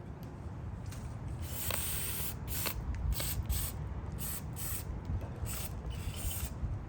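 Aerosol carburetor cleaner sprayed onto carburetor parts in a series of short hissing bursts, some longer than others, starting about a second and a half in. A low rumble runs underneath.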